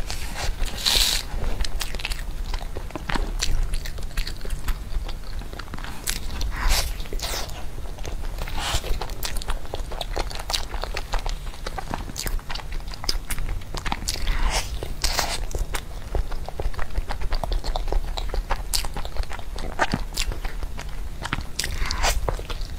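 Close-miked biting and chewing of a soft rolled pancake with a crispy pork floss filling: wet mouth clicks with a few louder crunchy bites.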